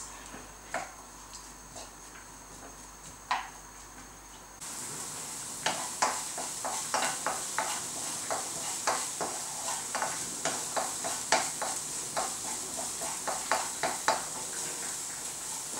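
Chopped onion frying gently in olive oil in a non-stick frying pan, sizzling, while a wooden spatula stirs it with repeated light knocks and scrapes against the pan. The sizzle starts suddenly about four and a half seconds in; before that there are only a few faint clicks.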